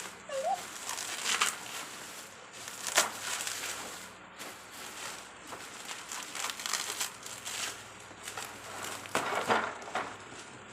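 Toy packaging crinkling and crumpling as it is handled, in irregular bursts, with the loudest crackle about three seconds in and another cluster near the end.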